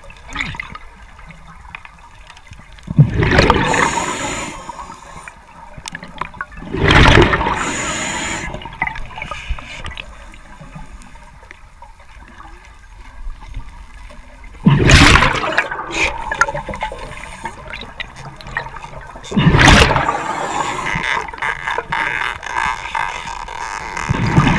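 Scuba diver breathing through a regulator underwater: four loud rushes of exhaled bubbles a few seconds apart, with quieter gurgling between them.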